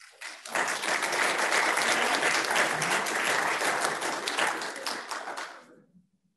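Audience applauding: the clapping swells within the first second, holds steady and dies away just before the end.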